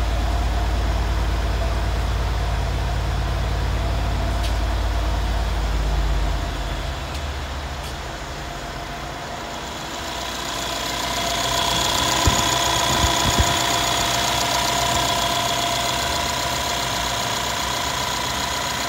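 A 2013 Mercedes SL550's twin-turbo V8 idling. For the first six seconds or so it is a deep, steady exhaust rumble. After that, at the open engine bay, the rumble fades and a steady high whine comes up from the engine, with a few light clicks a little past the middle.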